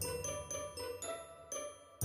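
Background music in a quiet stretch with a few light, ringing notes, fading toward the end.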